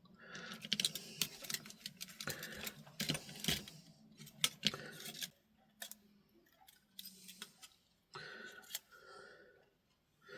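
Faint, quick clicks and small rattles of a Sony ICF SW100 pocket radio's plastic case, boards and ribbon cable being handled as the ribbon cable is worked free of the set. The clicks are dense for the first five seconds or so, then turn sparse.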